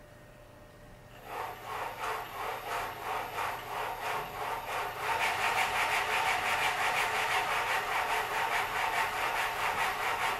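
Electric thrusting sex machine starting up about a second in, its motor driving the rod back and forth with a rhythmic mechanical chatter of about three strokes a second. About five seconds in it speeds up and gets louder.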